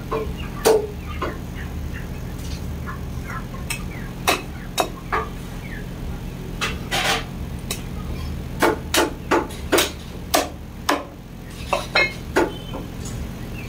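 Sharp knocks of goat meat being butchered on a wooden log chopping block, coming singly at first, then in a quick run of five about two-thirds through and three more near the end, over a steady low hum.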